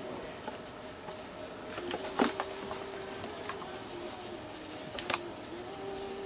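A few sharp clicks over a faint steady hum: the loudest click about two seconds in, and two close together near the five-second mark.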